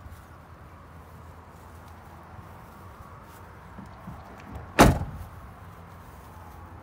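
The door of a 1995 Chevrolet OBS single-cab pickup shut once: one solid slam nearly five seconds in, over a low, steady background.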